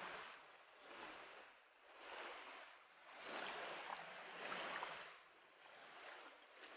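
Faint shallow stream water sloshing, coming in about five swells with short lulls between.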